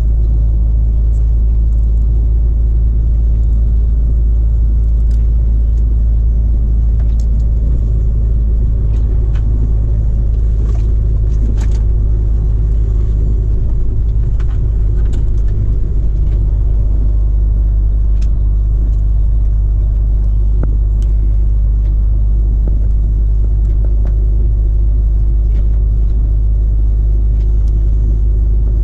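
Cab noise of a Volvo FH16 truck on the move: its 16-litre straight-six diesel engine running at a steady deep rumble with road noise. Scattered faint clicks come and go, most of them in the middle stretch.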